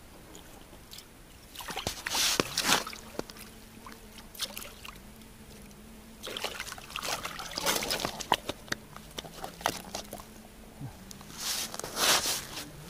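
Pike thrashing and splashing in an ice-fishing hole as it is hauled up by hand on a tip-up line, in three bursts of splashing, the last just before the fish comes out of the water.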